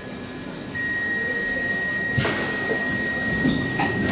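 Stockholm Metro C6 car's door-closing warning: a steady high beep that starts about a second in and holds for about three seconds. About halfway through, a loud pneumatic hiss joins it as the doors close, with a few clicks near the end.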